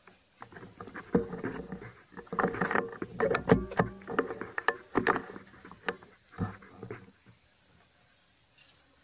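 Handling noise of an air rifle with a scope-mounted camera being swung about: irregular knocks, clicks and rustling, loudest near the middle, dying away after about seven seconds.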